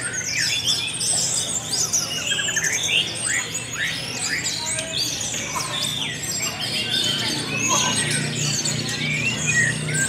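Many caged orange-headed thrushes (anis merah) singing at once in a competition, a dense overlapping chorus of quick whistles, trills and chirps with no pause.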